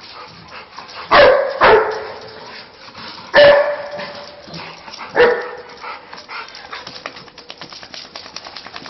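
A dog barking: two barks close together about a second in, then single barks about two and four seconds later, followed by a run of faint light ticks.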